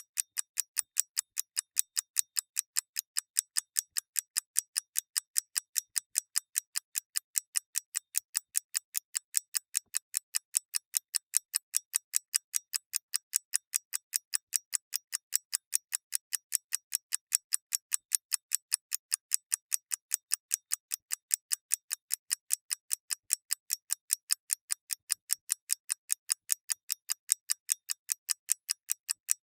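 Clockwork ticking: sharp, even, high clicks in a fast steady rhythm of about four to five ticks a second, with no variation in pace.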